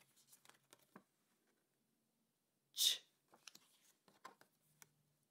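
A voice saying the phonics sound 'ch' once, short and breathy, about three seconds in. Around it, soft rustles and ticks of paper flashcards being handled.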